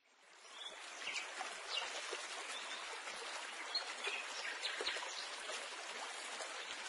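Faint steady rushing like running water, with brief high chirps like birdsong scattered through; it fades in over the first second.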